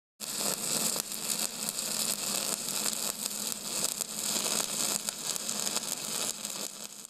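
Steady crackling hiss with a faint low hum underneath, flickering in level, starting and stopping abruptly.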